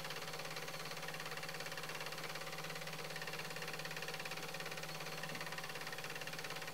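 Steady low electrical hum with hiss, the leftover noise floor of the recording after the song has faded out.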